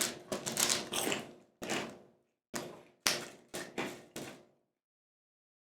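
Freshly microwaved pork rinds crunching as they are chewed: a quick run of crisp crunches that stops about four and a half seconds in.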